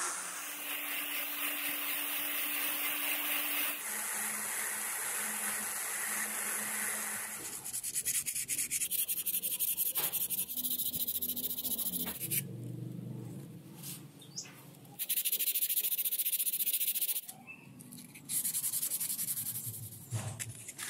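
A power tool's sanding drum whirring as it grinds a wooden knife handle, then, from about seven seconds in, sandpaper rubbed quickly back and forth over the wooden handle by hand in several bursts with short pauses between them.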